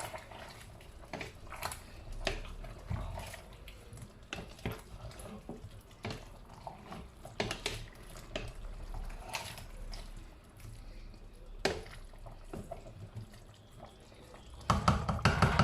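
A spoon stirring a pot of plantain porridge: wet sloshing of the thick stew, with scattered light clicks and knocks of the spoon against the pot. A single sharper knock comes late on, and a louder stretch of scraping and clatter comes near the end.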